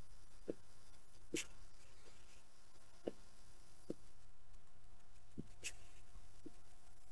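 Faint background: a low steady hum with about seven scattered soft clicks and ticks, the sharpest about a second and a half in and about five and a half seconds in.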